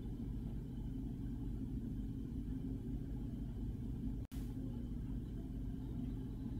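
Steady low hum, with a split-second dropout about four seconds in.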